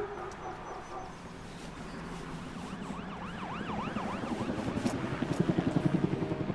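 City street ambience with a siren yelping in quick up-and-down sweeps, followed by a fast low pulsing throb that swells louder toward the end.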